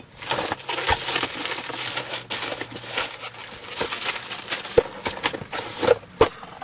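Plastic packaging crinkling and rustling as a cardboard box is opened and unpacked, with scattered knocks and scrapes of the box and its contents.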